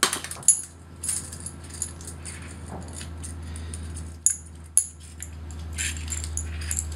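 Light metallic clicks and clinks of a small hose-fed gas camping stove being folded up by hand, its legs and pot supports snapping shut, over a low steady hum.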